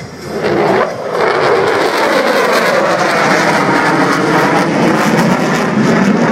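Twin-engine F-15 Eagle fighter jet flying a low pass, its loud jet engine noise building in the first second, then holding with a sweeping, shifting whoosh as it passes.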